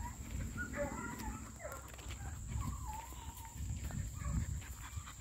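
Deer hounds baying in the distance as they run a track: faint, wavering drawn-out calls from more than one dog, over a low rumble.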